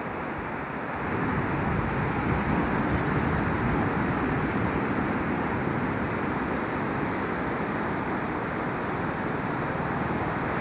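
Sea surf washing on a beach: a steady rush of breaking waves that swells a little louder about a second in.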